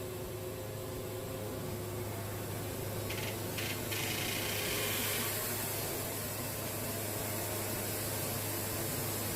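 Wood-Mizer portable band sawmill running, its engine giving a steady hum under a broad hiss, with a louder, higher rasp about three to five seconds in.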